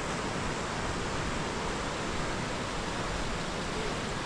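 A steady, even rushing noise with no separate events standing out.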